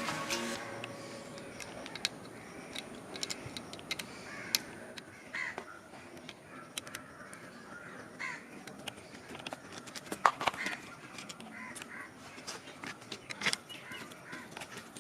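Crows cawing now and then, over scattered sharp clicks and taps, the loudest about ten seconds in.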